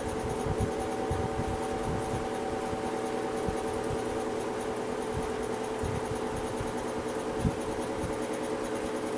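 1984-85 Galaxy 20-inch box fan (model 3714) running: a steady motor hum with irregular low thumps. The owner says its bearings are seizing up and the motor sounds like it is about to die.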